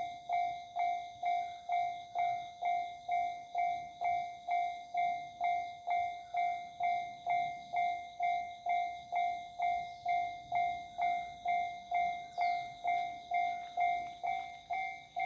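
Japanese railway level-crossing warning bell ringing its steady alternating 'kan-kan' alarm, a little over two dings a second, signalling that a train is approaching and the crossing is closed.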